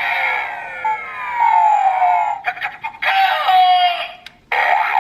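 DX GabuGabuRevolver toy morpher playing electronic sound effects through its small built-in speaker: a long falling, siren-like sweep, then after a brief break another falling tone. After a short drop-out near the end, a new burst of effects starts.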